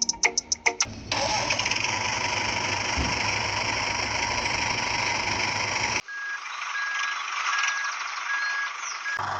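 Brief music, then the small motor of a DIY model machine running with a steady whir. About six seconds in the sound cuts to a thinner whir with a faint high beep repeating at even spacing, and the fuller whir comes back near the end.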